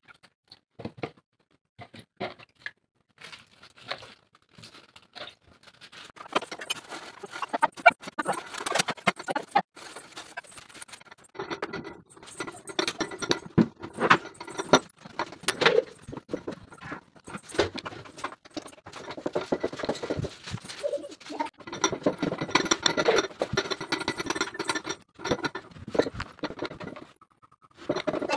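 Cloth wiping and scrubbing a glass-top gas stove and its steel burners in irregular strokes, mixed with clinks and knocks of the metal burner parts being handled. Only scattered knocks for the first few seconds, then continuous rubbing.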